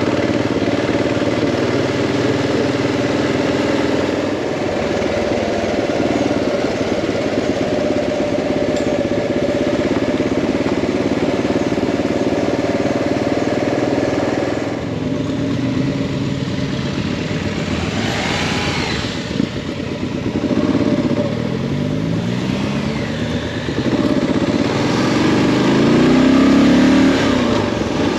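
Motorcycle engine running on the road. In the second half its pitch climbs several times as it accelerates, and it is loudest near the end.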